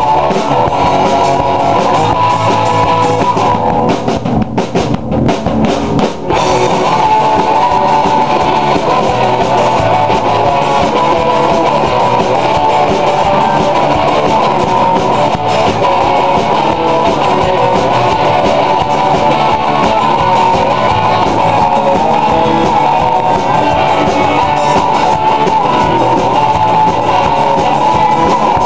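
Rock music with guitar and drum kit, played without vocals, loud and steady apart from a few brief breaks about four to six seconds in.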